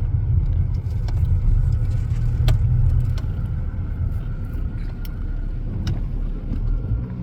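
Car rolling slowly, its engine and road rumble heard from inside the cabin as a steady low drone, with a few sharp clicks or rattles scattered through.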